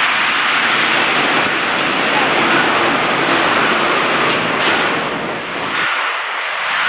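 Automatic wire-mesh welding line running: a loud, steady mechanical din with two short, sharp hisses past the middle.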